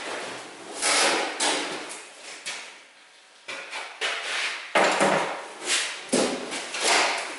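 Steel VW Bay Window camper sliding door being slid across trestles, then lifted and turned over. It gives repeated scraping swishes, with sharp knocks about three and a half, five and six seconds in; the one near six seconds carries a low thud.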